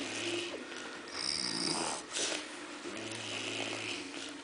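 A person snoring in sleep: a low snore at the start and another about three seconds in, with a hissing breath in between.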